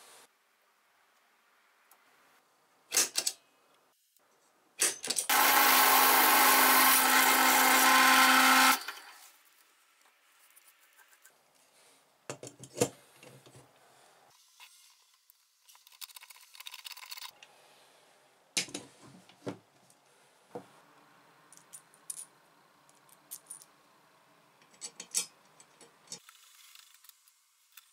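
A drill press motor runs under load for about three and a half seconds, about five seconds in, as it drills into steel; this is the loudest sound. Around it come scattered metal clinks, knocks and scrapes of small steel parts and tools being handled.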